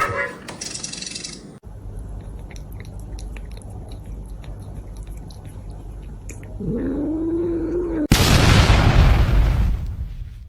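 A cat's single drawn-out meow that rises and then falls in pitch, followed by a louder rushing noise lasting about two seconds.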